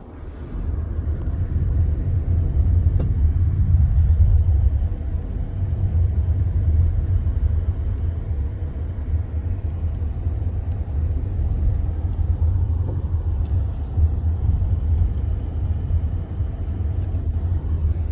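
Vehicle driving down a mountain road, heard from inside: a steady low rumble of engine and road noise that picks up about half a second in.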